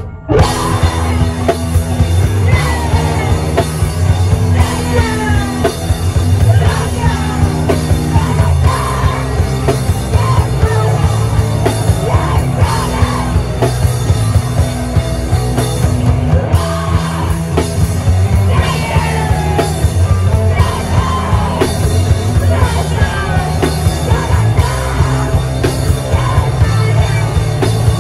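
Live rock band playing loud and fast with drum kit and shouted, screamed vocals. The full band crashes in right at the start after a few lone drum hits.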